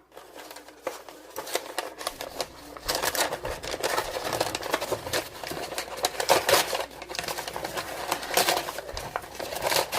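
Cardboard box and packing being handled and rustled open: a dense run of crackles, clicks and rustles that gets louder about three seconds in.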